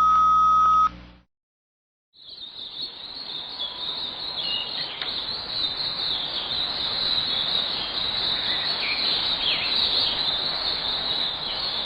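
A radio time-signal tone sounds for about a second to mark the hour. After a short gap, a recorded dawn chorus of small birds chirping comes in over steady hiss, heard as a radio broadcast.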